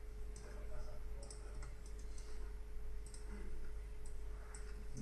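Irregular clicks of a computer mouse and keyboard, about half a dozen in a few seconds, over a steady low electrical hum.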